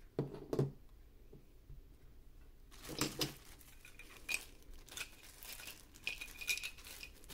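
Clear plastic packing bags crinkling as small parts of a binocular phone mount are unwrapped, with a few sharp knocks of hard parts set down on a table, loudest just after the start and about three seconds in.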